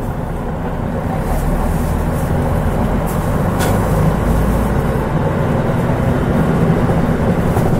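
Mitsubishi Fuso Aero Star city bus (KL-MP37JK) running, heard aboard: the turbocharged 6M70 six-cylinder diesel's low drone grows louder about a second in as the bus pulls harder.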